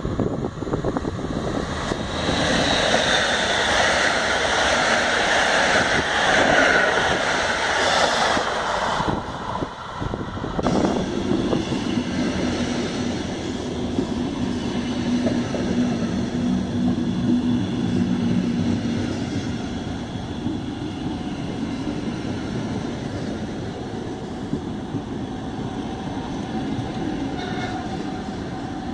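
A train passing at speed with a loud rush of wheel and air noise. After a cut, red DB Regio double-deck coaches roll past the platform with a steadier, lower rumble on the rails.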